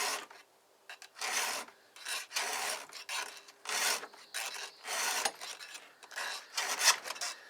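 A hand file rasping across a chainsaw chain's cutters in about ten short back-and-forth strokes, with a brief pause near the start. The chain is being sharpened because it has gone dull from long use.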